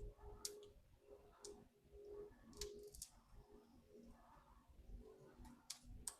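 Near silence: quiet room tone with a few faint, short clicks scattered through it.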